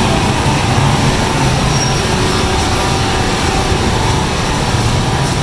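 Steady rumble of vehicle traffic in a busy market street, with no single event standing out.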